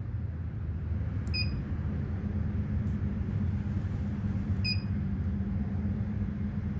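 Two short electronic beeps about three seconds apart from a Wilson Baiardo stringing machine's touchscreen as its buttons are pressed, over a steady low hum.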